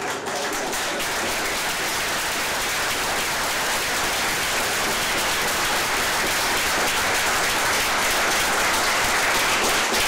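Audience in a lecture hall applauding, many hands clapping steadily.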